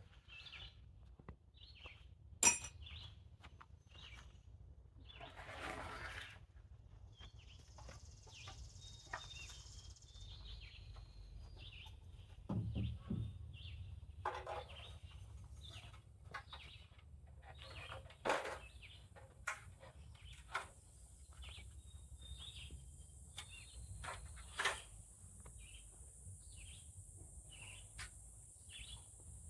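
Birds chirping now and then over a faint low hum, with a few sharp knocks or clicks. A steady high hiss sets in about two-thirds of the way through.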